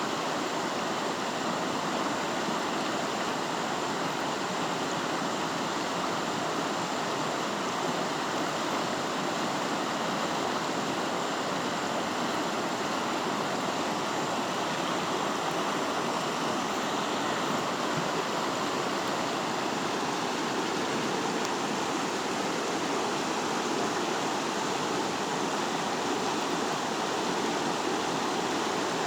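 River water rushing steadily, an even unbroken sound of flowing water.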